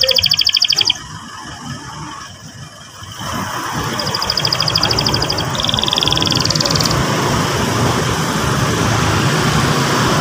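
Canary singing fast trills of rapidly repeated high notes: one through the first second, then two more from about four to seven seconds in, the second a little lower. From about three seconds in they sit over a steady rushing noise.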